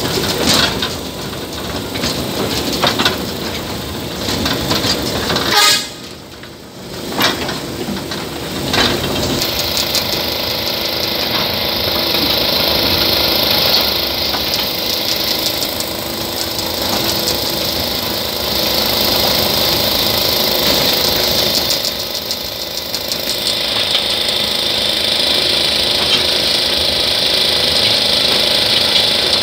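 Small train on a light forest railway running along the track: a steady rumble and rattle of the wagons, more irregular in the first several seconds, with voices mixed in.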